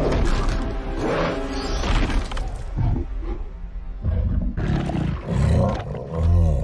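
Film sound design of a giant ape and a winged creature fighting: creature roars and snarls with heavy low thuds, over dramatic film score music. Arching calls come near the start and again near the end, with a run of deep, heavy bursts in the second half, the loudest just before the end.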